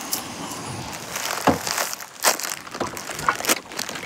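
Plastic instant bibim-myeon noodle packet crinkling in the hands as it is handled and opened, in a few irregular crackly rustles.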